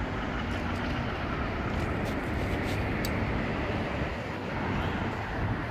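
Steady low rumble of distant engine noise, with a few faint clicks about two to three seconds in.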